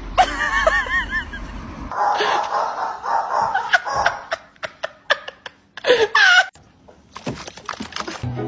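A person laughing in a run of short bursts, followed by a mix of brief knocks and noises.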